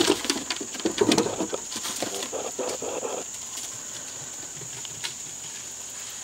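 Dogs' paws pattering and knocking on wooden deck steps as they run down, a quick run of footfalls that thins out after about three seconds as they reach the grass. A steady high drone of insects runs underneath.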